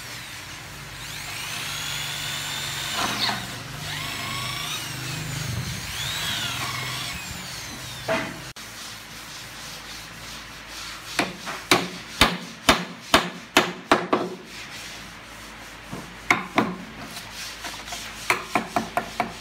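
Electric drill boring into a wooden door frame, running for about eight seconds, then a wooden mallet driving a chisel into the frame in runs of sharp knocks, about three a second.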